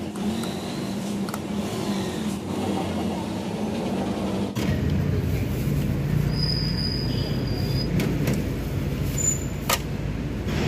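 Street traffic with a vehicle engine running steadily as a low hum, which shifts abruptly and grows a little louder partway through. A brief high whine and a few sharp clicks come near the end.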